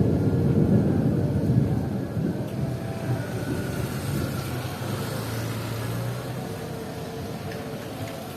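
Low rolling rumble of thunder over steady heavy rain, loudest in the first two seconds and then slowly fading.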